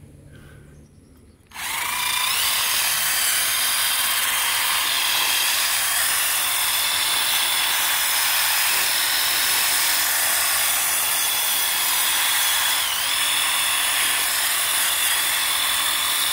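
A power tool spinning a 1-inch wire brush starts about a second and a half in, its whine rising as it spins up. It then runs steadily, scouring rust and old paint off a steel garden-tractor wheel rim, with a brief dip in pitch near the end as the brush bites.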